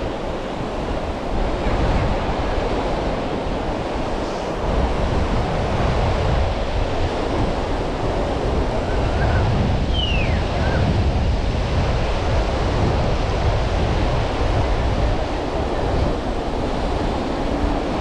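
Sea waves washing onto a beach in a steady rush, with wind buffeting the microphone. A brief high falling cry is heard about ten seconds in.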